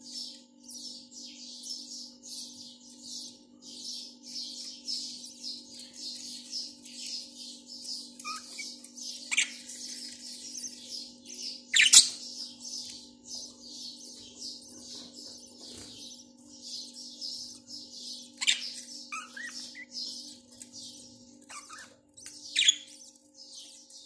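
Budgerigars chattering in a continuous fast twittering, with a few sharp high calls that fall in pitch, the loudest about halfway through. A steady low hum runs underneath.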